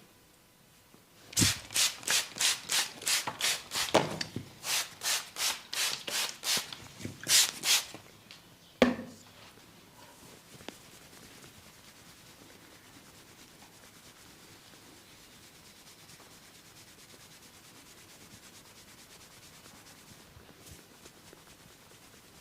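Massage hands rubbing briskly over oiled skin or hair in a quick run of strokes, two or three a second, then a single sharp click about nine seconds in, followed by faint steady rubbing.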